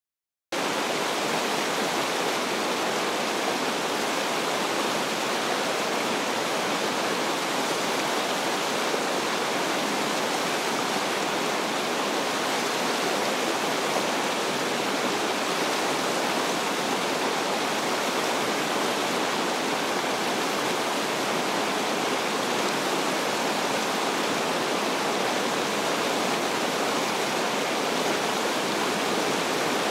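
River water rushing, a steady, loud, even roar of noise with no breaks, picked up by a camera submerged in the current among the rocks. It starts abruptly about half a second in.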